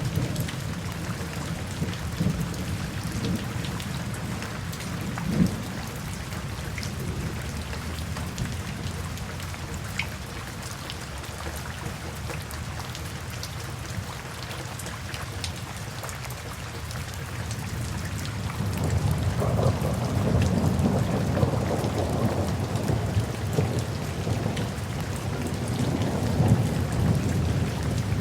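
Steady rain falling, with a low rolling rumble of thunder that swells up about two-thirds of the way through and stays loud to the end.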